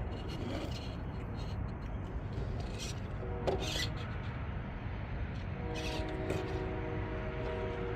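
Redcat Ascent RC crawler driving off-road: its electric motor and gearing whine steadily in stretches, over a constant low rumble of the tyres working the ground, with a few light clicks.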